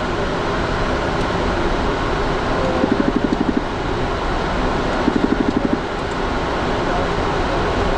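Steady rushing cockpit noise of a business jet in the climb, airflow and engine noise with no let-up. Two short bursts of a rapid buzzing pulse, each under a second, come about three and five seconds in.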